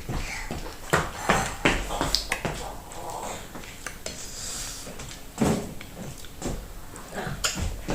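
Close-miked eating sounds of fufu with okra soup: wet chewing and mouth smacks, with sharp clicks scattered throughout and several louder ones about a second in and again past five seconds.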